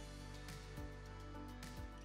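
Quiet background music with steady held tones and soft notes coming in now and then.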